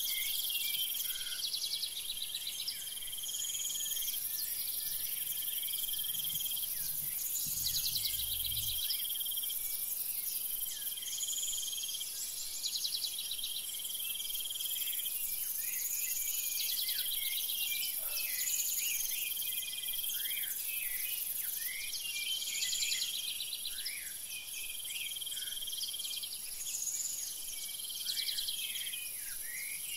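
Outdoor insect and bird chorus: a steady high-pitched insect hiss, with birds calling over it. One song phrase repeats about every four seconds, among many short falling chirps.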